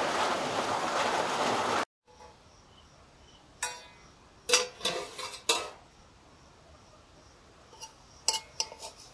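Steady rain for about two seconds, cut off suddenly. Then a metal spoon clinks and scrapes against an aluminium karahi of cooked chicken pulao, in three scattered groups of sharp clinks.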